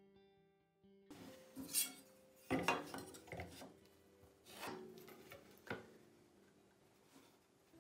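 Several short knocks and scrapes as a metal square and a pallet board are set down and shifted on a wooden workbench, with pencil scratching, over soft background music.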